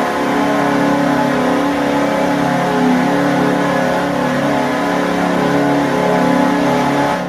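Goal horn sounding one long, steady blast made of several tones at once, cut off suddenly at the end.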